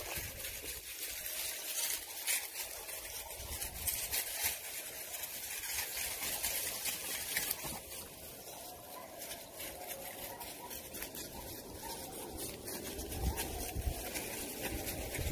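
Dry leaf litter and twigs rustling and crackling underfoot as puppies and a person walk through brush, with wind buffeting the microphone now and then.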